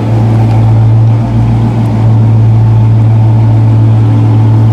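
Dodge Charger Scat Pack's 6.4-litre (392) HEMI V8 idling steadily through a muffler-delete exhaust, with the factory resonators, cats and headers kept, heard from about 15–20 feet away.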